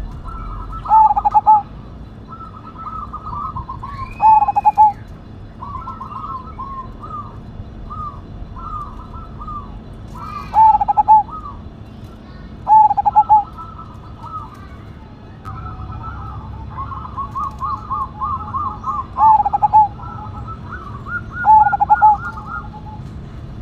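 Zebra dove (perkutut) singing: six loud, short trilled coos spaced through the stretch, with softer rising-and-falling notes chirped between them.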